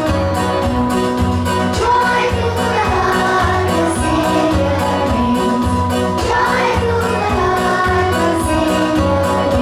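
Christmas song played with a steady beat, with children's voices singing along in chorus.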